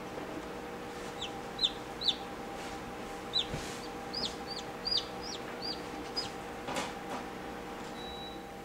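Newly hatched chick peeping: a run of about a dozen short, high peeps, each sliding slightly down in pitch, over the steady hum of the incubator.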